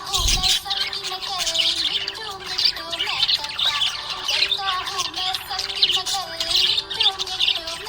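Budgerigars chirping and warbling in a dense, continuous chatter of rapid high chirps, over a stepping background melody; a short low thump comes just after the start.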